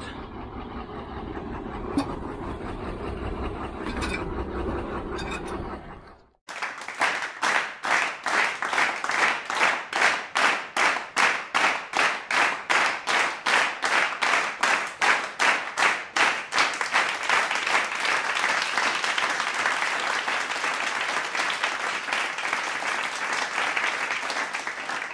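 A steady low rumble for about six seconds, then a sudden cut to an applause sound effect: rhythmic clapping at about three claps a second that swells into continuous applause.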